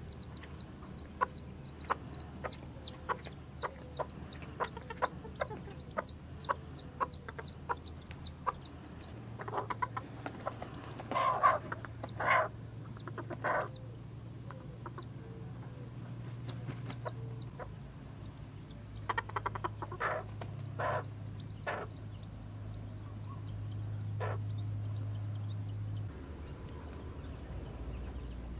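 Newborn chicks peeping: a fast, steady stream of short, high, falling cheeps, loud for the first nine seconds or so and fainter after. A few short, lower sounds come in the middle, over a steady low hum.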